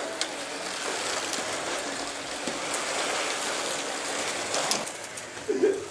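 Electric slot cars running around a plastic track, a steady whirring hiss with a few light clicks. A short voice sounds near the end.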